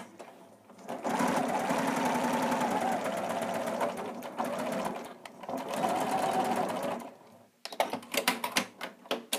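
Electric domestic sewing machine stitching through fabric at a steady fast pace in two runs, with a brief slowdown about four and a half seconds in, stopping at about seven seconds. A series of sharp clicks and taps follows near the end.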